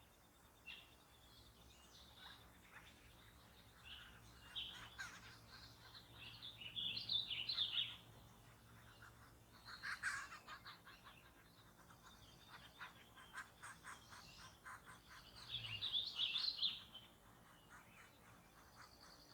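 Wild birds chirping and calling in a forest, in several separate bursts, with a quick run of rapidly repeated notes in the middle.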